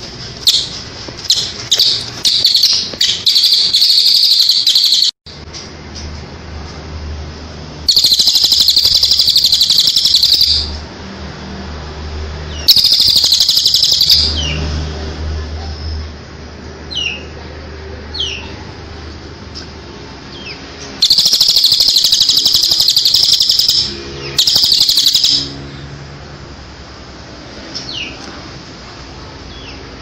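Recorded songbird masteran of cililin and ciblek (bar-winged prinia): loud, high-pitched trilling song in about five bouts of one to three seconds each, the first starting in stuttering bursts, with soft single chirps between the bouts.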